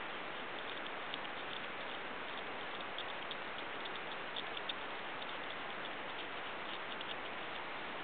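North American porcupine gnawing kernels off a corn cob: many small, irregular crunching clicks over a steady background hiss.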